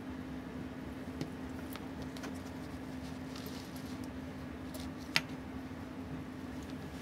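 Small metallic clicks and ticks of steel tweezers handling tiny Seiko 6138 chronograph movement parts, with one sharper click about five seconds in, over a steady low hum.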